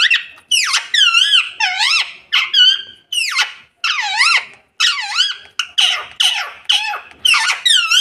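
Rose-ringed (Indian ringneck) parakeet calling over and over: short, high, wavering screeches, about two a second without a break.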